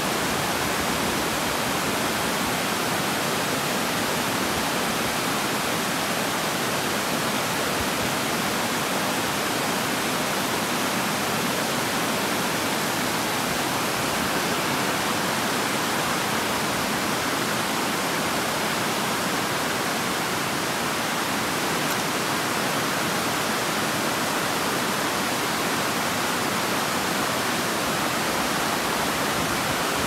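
Water pouring over a stepped stone weir: a steady, even rushing hiss that does not change.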